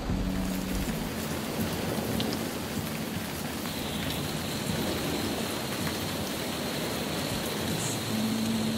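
Heavy rain on a car's roof and windshield, heard from inside the moving car as a steady rush of noise.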